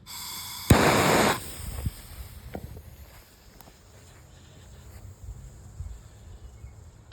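A firecracker being set off: a short, loud, noisy flare about a second in, likely the fuse catching, then a few quieter seconds with faint clicks, and a sharp, very loud bang at the very end as the firecracker explodes.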